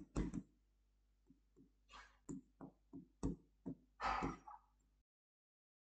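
Stylus pen knocking and tapping on the glass of an interactive display while handwriting: a run of a dozen or so short, soft, irregular knocks that stop about a second before the end.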